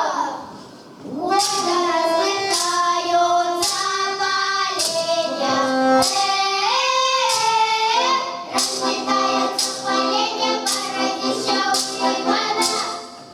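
A group of voices singing a Russian folk song in parts, on long held notes, with a sharp tap marking a steady beat a little under twice a second.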